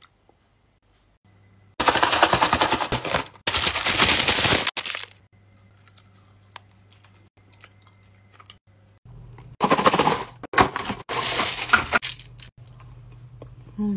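Close-miked crunching of hard candy being bitten and chewed: two long, dense runs of rapid crackle starting about two seconds in, and more crunching bursts near the end.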